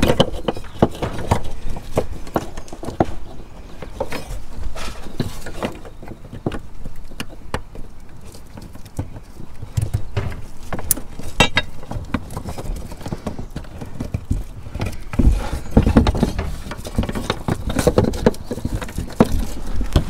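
Irregular knocking, rubbing and clicking of hand and arm working under a motorhome's raised rooftop solar panel, reconnecting the solar cable connectors, with two sharp clicks about halfway through and heavier thuds in the second half.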